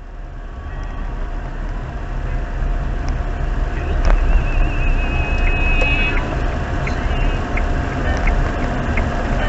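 A motor vehicle driving, with a steady low rumble of engine and road noise that builds over the first few seconds and then holds. Faint regular ticks, about one every 0.6 seconds, come in during the second half.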